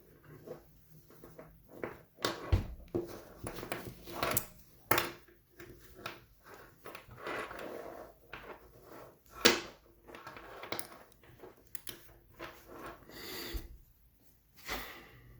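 Close-up handling noises: irregular clicks, knocks and rustling as small objects are worked by hand, with a louder knock about two and a half seconds in and a sharp click about nine and a half seconds in.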